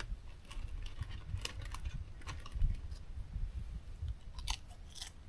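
Dying campfire crackling: scattered small pops and clicks at irregular intervals, with one sharper pop a little past halfway and a cluster of pops near the end, over a low uneven rumble.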